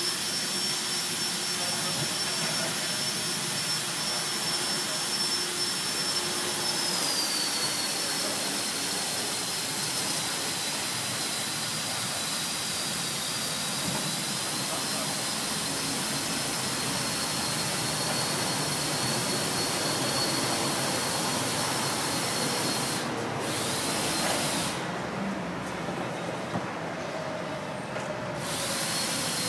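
Electric winch of a Rhino roof-rack boat loader running steadily under load as it hauls an aluminium dinghy up onto the roof, a high whine over a hiss. The whine drops slightly in pitch about seven seconds in, and the hiss cuts out briefly twice near the end.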